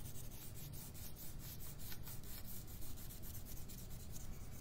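Colored pencil rubbed quickly back and forth on paper, shading in a patch of color with rapid scratchy strokes.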